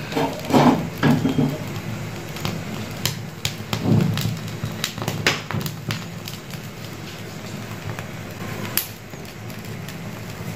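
Scattered sharp clicks and light knocks of a mutton trotter being handled over a stove flame, over a steady low hum.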